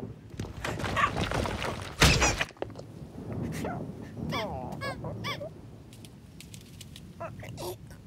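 A cartoon ostrich squawking and honking in short, bending cries. Before them comes a rumbling crash of falling rock that peaks sharply about two seconds in.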